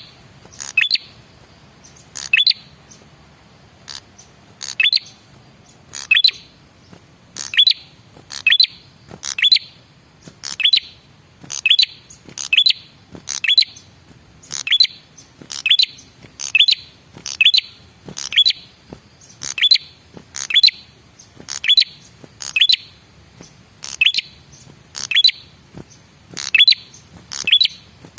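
Male ashy tailorbird (prenjak kepala merah) calling: a long run of short, sharp, sweeping chirps, about one a second, in a steady, insistent rhythm.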